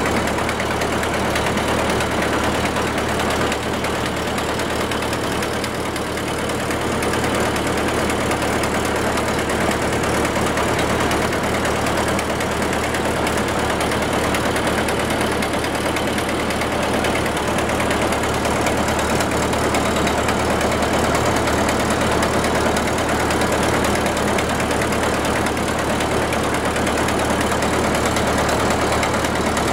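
A boat's engine running steadily, heard from aboard the moving boat, with a constant rushing noise over the low engine drone.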